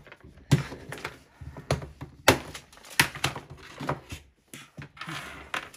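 Hard plastic Cloudees cloud case being opened and handled: a series of sharp plastic clicks and knocks as the lid is pried off and the case and its parts are set down on a table, with a short rustle near the end.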